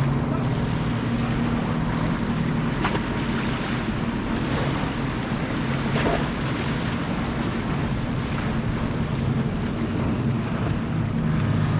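Wind buffeting the microphone over the wash of waves, with a steady low drone underneath and a few faint clicks.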